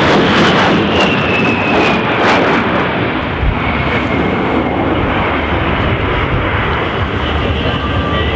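The twin General Electric TF34 turbofans of an A-10 Thunderbolt II passing in flight: a loud, steady rush of jet noise with a high whine that falls in pitch over the first few seconds as the jet pulls away.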